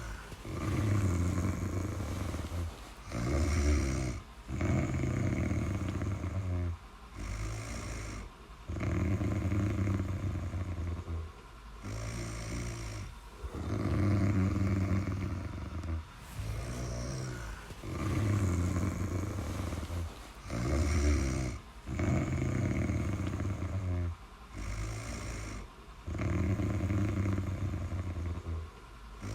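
Snoring in a steady breathing rhythm: loud, low snores about two seconds long alternating with quieter breaths, repeating every few seconds.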